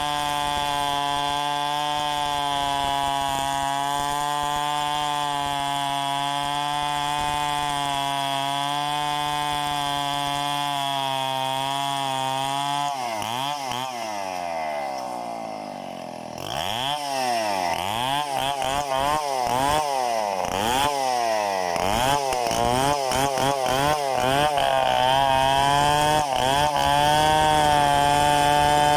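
Two-stroke Stihl chainsaw held at a steady high speed. About halfway through the throttle is let off, and the engine falls away and is blipped up and down several times. It then climbs back to a steady high speed that gets louder near the end.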